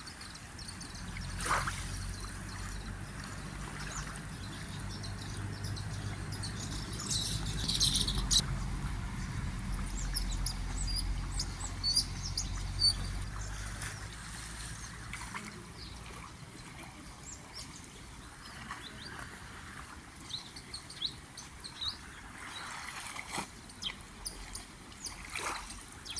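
Small birds chirping in short high calls over an idling Isuzu Elf truck's diesel engine. The engine's steady low hum stops about halfway through, leaving only the birds.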